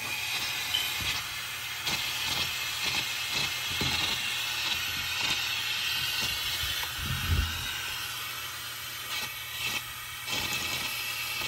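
Balloon air hissing steadily through a tube into a paper model boxer-twin engine running without its flywheel, with irregular light clicks and taps from its paper pistons and crank as it struggles to keep turning over.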